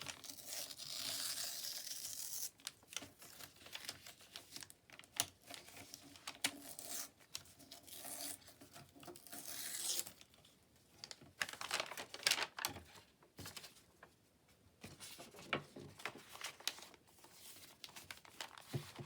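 Paper being torn along its edge to give it a raw, ragged look: a long rip at the start and another about eight seconds in, with crinkling and short crackles of handled paper between.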